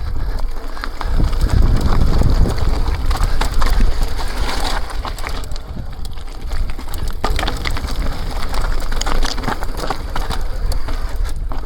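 Electric mountain bike riding downhill over a rocky, rutted trail: tyres crunching over stones and gravel, with frequent sharp knocks and rattles from the bike and a steady low rumble of wind and ground noise.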